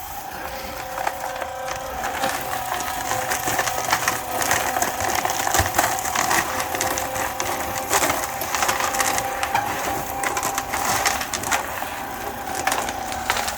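Concrete mixer running, its turning drum churning a batch of concrete with a continuous crunching clatter over a steady motor hum.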